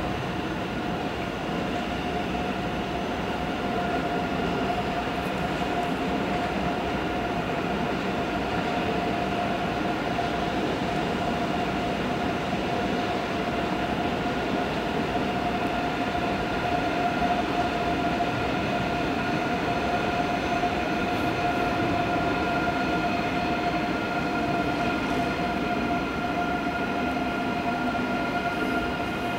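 Electric trains in a large station: a steady low rumble of rolling stock under a steady electric whine.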